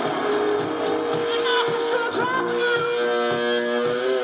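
Live rock music: an electric guitar holds long notes, with a few bends in pitch in the middle, over drum hits.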